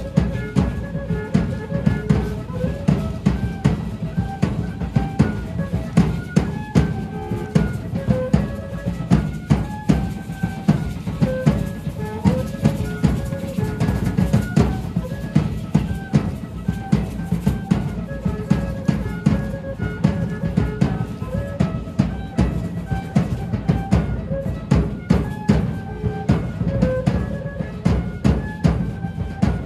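Large drum beaten in a fast, steady rhythm for a Laguna feather dance, with a simple high melody repeating over it.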